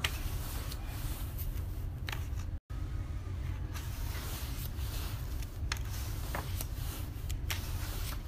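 Pages of a hardback cookbook being turned by hand, with scattered paper rustles and light clicks over a steady low hum. The sound drops out completely for a moment about two and a half seconds in.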